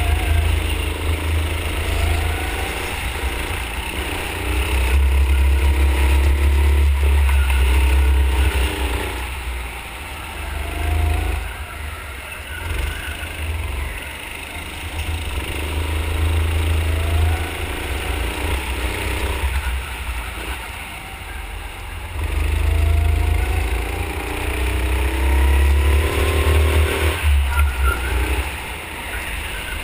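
Go-kart engine heard onboard, its pitch rising as it accelerates and then falling away, several times over, over a heavy low rumble.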